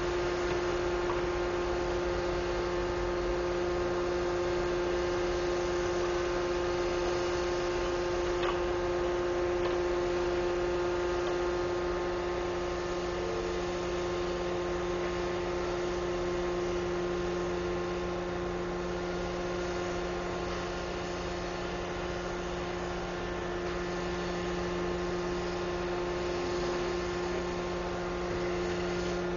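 A steady, even hum made of several constant tones over a light hiss, unchanging throughout.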